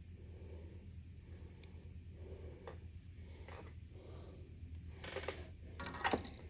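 Faint clicks and scrapes of hand soldering wires to a potentiometer's terminals with a soldering iron and solder wire, then louder handling noise about five seconds in as the iron is lifted away, over a steady low hum.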